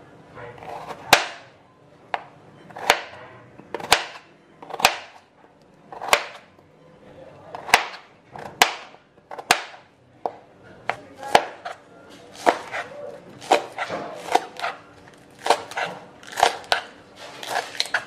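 Kitchen knife chopping peeled potatoes on a cutting board: the blade knocks the board about once a second, the knocks coming closer together in the second half.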